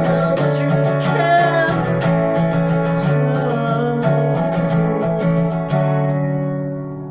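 Guitar strummed in a steady rhythm, ending on a final chord that rings out and fades away from about six seconds in.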